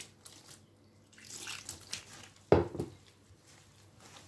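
Lukewarm water poured from a glass bowl, dripping and splashing into flour in a wooden mixing bowl, with one louder splash about two and a half seconds in.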